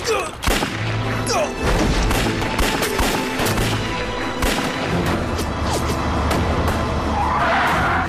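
Dramatic action film score under a rapid, irregular series of gunshots and booms.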